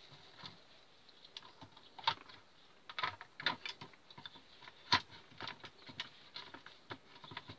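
Irregular light clicks and taps as a circular fluorescent tube is handled and fitted back into its clips on a ceiling light fixture, with one sharper knock about five seconds in.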